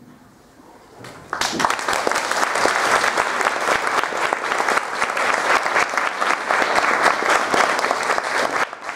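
Audience clapping: a short hush, then applause breaking out about a second in, dense and even, dying away near the end.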